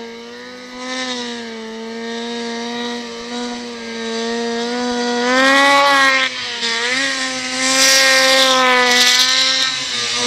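Turbocharged two-stroke 800 snowmobile engine running hard at a steady high pitch as the sled climbs a steep hill in deep snow. It gets louder about halfway through and again near the end.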